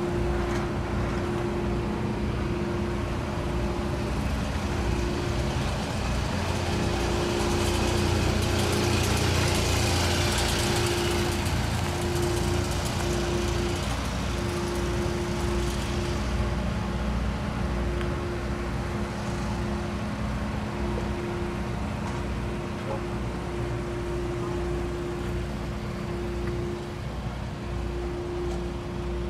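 Steady engine drone with a low rumble and a held humming tone that briefly drops out several times. A louder rushing noise swells about seven seconds in and fades away by about sixteen seconds.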